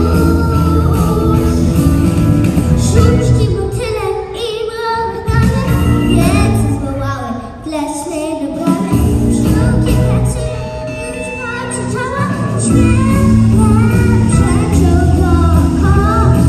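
A young girl singing a song into a microphone over backing music. The backing's bass thins out for a while in the middle and comes back full for the last few seconds.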